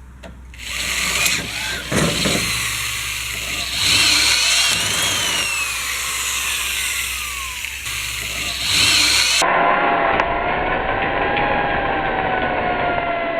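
Power tool working on the sheet-steel belt guard, with a harsh metal-on-metal noise that changes pitch. About nine seconds in the sound changes abruptly to a duller, steady whine that slowly falls in pitch.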